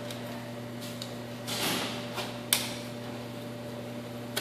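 Stair chair strap being handled and buckled: a short rustle, then one sharp click of the buckle about halfway through and a smaller click near the end, over a steady low hum.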